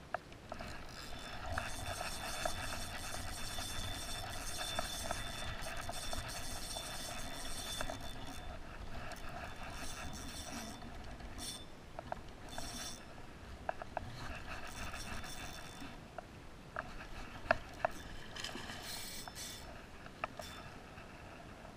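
Spinning reel being cranked, its gears whirring with a faint steady whine as line is wound in, then shorter bursts of cranking with a few sharp clicks near the end as a hooked fish is reeled to the bank.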